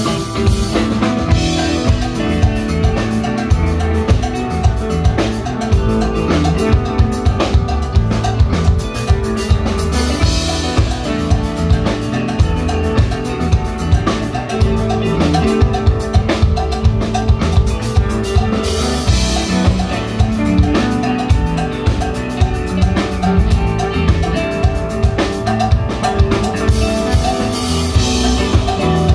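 Instrumental post-rock played live by a band of two electric guitars, electric bass and drum kit, driven by a steady drum beat. Cymbal washes swell up about ten seconds in, near twenty seconds and near the end.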